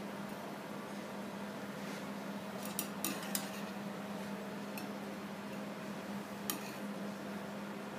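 Metal tongs and china plates clinking and knocking lightly on a stainless steel counter as food is plated: a small cluster of clicks just before the middle and a single one later on. A steady low hum runs underneath.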